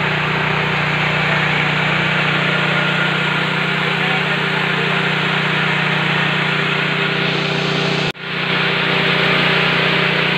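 KD 500 WG mini rice mill running steadily under load, milling paddy into white rice: a loud, even mechanical drone and hiss with a steady low hum. The sound cuts out for an instant about eight seconds in and comes straight back.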